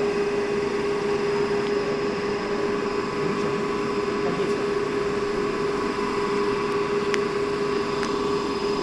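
Electric motor running steadily at about 1,440 rpm, a constant hum with one steady whining tone. A couple of faint ticks near the end.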